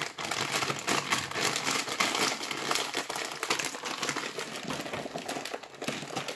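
A foil snack-chip bag crinkling and rustling as a hand rummages in it to pull out a chip.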